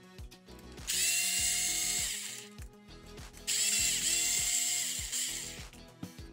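Cordless power screwdriver with a 2.5 mm hex bit running twice, each run a steady motor whine lasting about a second and a half to two seconds, backing out screws to loosen a steering rack.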